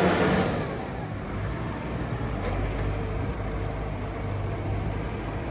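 Case IH Maxxum tractor's diesel engine running as the tractor drives off, getting quieter over the first second as it pulls away and then running steadily at a distance.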